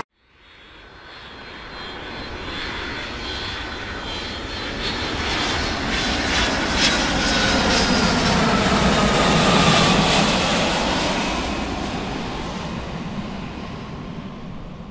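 Airbus A350-900's Rolls-Royce Trent XWB turbofans at takeoff power. The jet noise swells for about ten seconds as the airliner passes and climbs away, then fades, and a faint whine falls in pitch through the middle.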